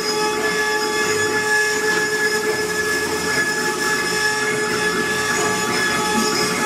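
CNC wood-carving router running, its spindle giving a steady whine of several fixed tones over a hiss of cutting noise.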